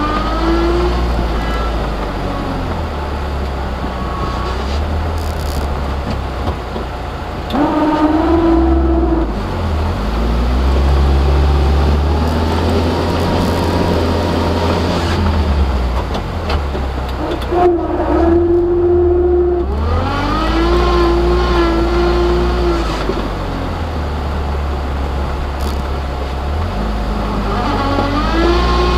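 1100cc Oreion Reeper UTV engine under load while plowing snow with a blade: a steady low rumble, its pitch climbing and dropping several times as the throttle is opened and eased, with sharper rises about a third of the way in, around two-thirds through and near the end.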